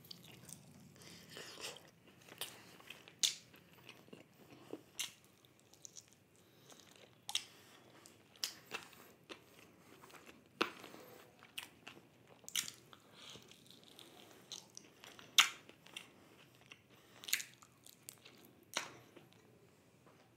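A person chewing a piece of chicken in gravy close to the microphone, with wet mouth clicks and smacks at irregular intervals.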